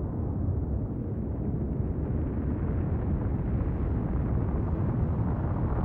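Continuous low rumble of an erupting volcano venting a billowing ash column, steady throughout with no separate blasts.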